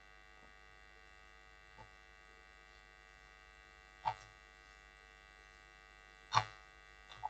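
Faint steady electrical hum and buzz on the microphone, with a few soft, scattered keyboard clicks as code is typed.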